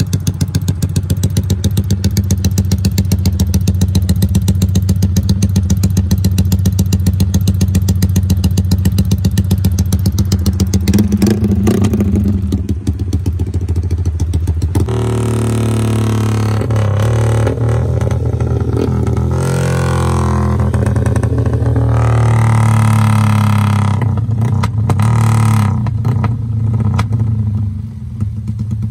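Yamaha Y15ZR's 150 cc single-cylinder four-stroke engine running on a chassis dynamometer: a fast, even exhaust beat for the first half, then revved hard with rising and falling pitch from about halfway in, dropping back near the end. The run still shows the stutter around 9,000–10,000 rpm that the owner suspects comes from the throttle position sensor, even with a new 3.6 bar fuel pump fitted.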